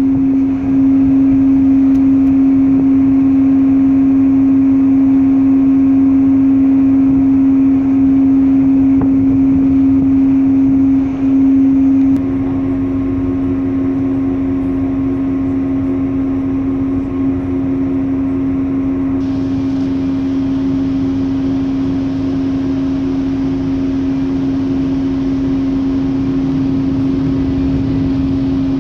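Loud, steady mechanical hum of a container ship's machinery, one constant tone over a noisy rumble, with a second, higher tone joining about twelve seconds in.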